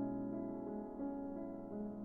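Background music: a slow piano melody of soft, held notes.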